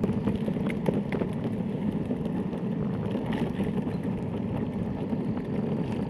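Electric longboard rolling over rough asphalt: a steady rumble of the wheels on the pavement, with a few light clicks and a faint high whine coming in about halfway.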